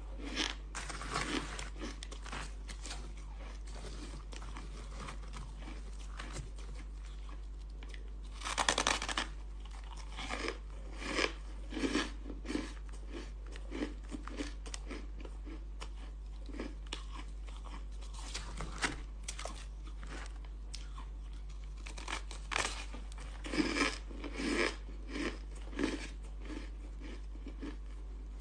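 Close-up crunching and chewing of packed, snowy crushed ice bitten off in chunks, in irregular bursts of crisp crunches with the loudest clusters about a third of the way in and again near the end.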